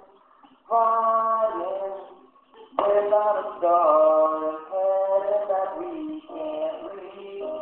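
A man singing solo lines in phrases, with a short pause near the start and another about two seconds in.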